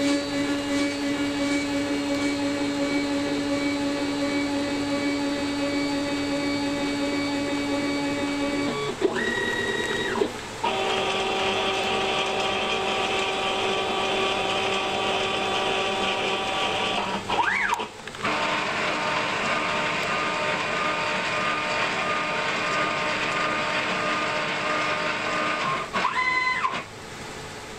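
Stepper motors of a CNC router driving its axes one after another toward hall effect home switches during homing: a steady whine that holds one pitch for several seconds at a time, broken three times by a brief whine that rises and falls in pitch.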